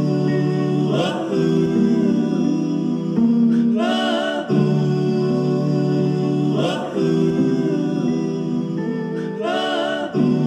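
Music: a song with a singing voice over held chords, with a brighter swell about every three seconds.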